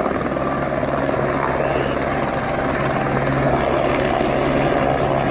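Light helicopter hovering low over water, its rotor and engine giving a steady, unbroken drone.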